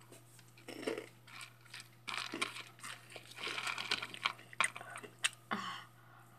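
A person chewing Hot Cheetos: crunching in irregular bursts, some sharp and loud, over a faint steady low hum.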